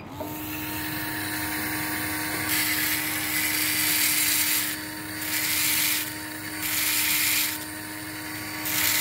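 Surgical implant motor's contra-angle handpiece starting up and spinning with a steady whine, driving the first long zygomatic drill. The drill cuts in about four times, each pass a harsh grinding hiss, the first about two seconds long and the rest shorter.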